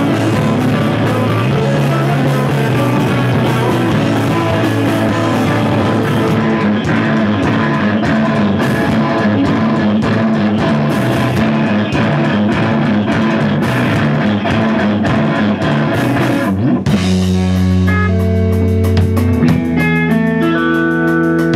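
Live rock band of two guitars, bass guitar and drum kit playing loudly. About 17 seconds in, the drums and cymbals mostly drop out, leaving long, ringing guitar and bass notes.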